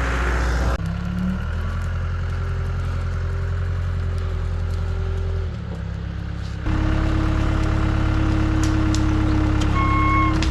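Diesel engine of a CAT 252B skid steer running steadily under work, its pitch and level shifting a few times: it drops and goes quieter about five and a half seconds in, then comes back louder about a second later.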